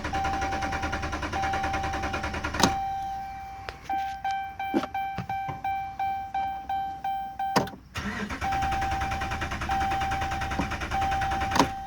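2011 Dodge Ram's Hemi V8 being cranked by the starter without catching, in two bursts of several seconds with a pause of separate clicks between, while a high beeping tone sounds on and off. The engine cranks but won't fire: no fuel.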